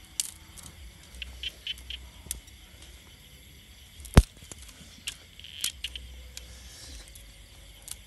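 Dry sticks and twigs being handled and broken by hand on sandy ground: scattered light crackles and clicks, with one sharp, loud snap about four seconds in.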